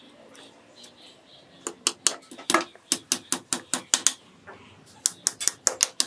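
A hammer tapping a small nail into a joint of a thin wooden cage frame: a quick run of sharp taps about four a second, a short pause, then another run near the end.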